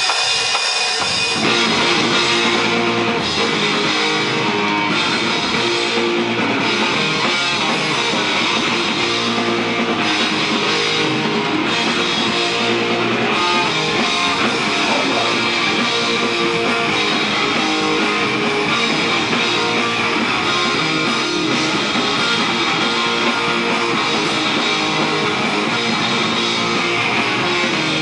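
Live rock band playing with electric guitar, bass guitar and drum kit. The full band comes in within about the first second, then keeps going at a loud, even level.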